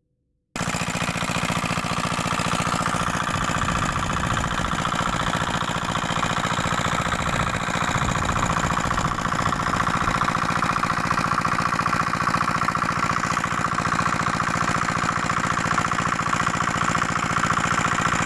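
4 HP R170A single-cylinder diesel engine running steadily under load, driving a water pump. The sound cuts in abruptly about half a second in.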